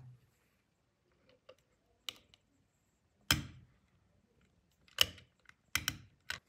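Short sharp clicks and taps as fingers work a brass clock hand onto the spindle of the clock movement on a hard epoxy-resin face. There are about six clicks, spaced irregularly, with the loudest a little over three seconds in and at five seconds, and a quick pair near the end.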